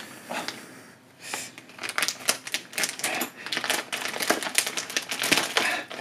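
Plastic wrapping around a tray of manju crinkling and crackling as it is handled, in rapid irregular crackles after a short lull about a second in.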